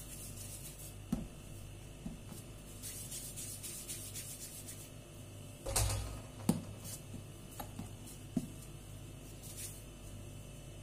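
Hands rolling pieces of soft yeast dough into balls over a floured wooden board: quiet rubbing and rustling, with a few light knocks as balls are set down, the loudest about halfway through.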